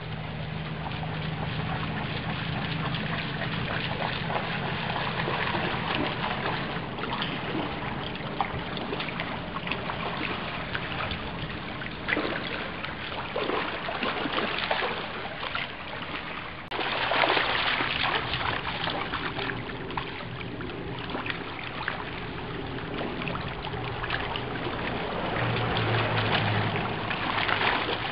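Shallow river water running over stones, with splashing as a Samoyed wades through it.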